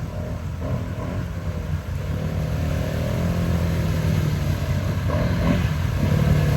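ATV engine running steadily with a low rumble, slowly getting louder.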